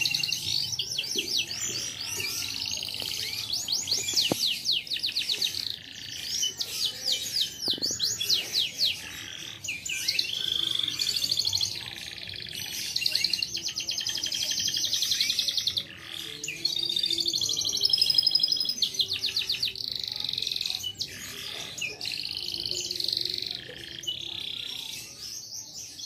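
Domestic canary singing a long, unbroken song of fast trills and rapidly repeated notes, switching to a new phrase every second or two.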